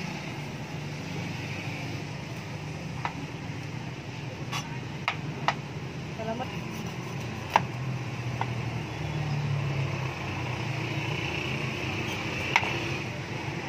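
A metal cleaver clicking and knocking against a ceramic bowl and a cutting board as chopped chili is tipped into the bowl and calamansi is cut: about seven short sharp clicks, scattered, over a steady low background hum.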